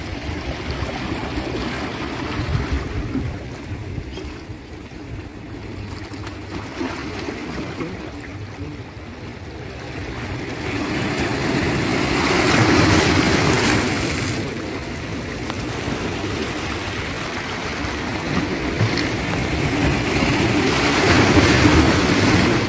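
Sea waves washing in, a steady rush of surf that swells into louder surges about halfway through and again near the end.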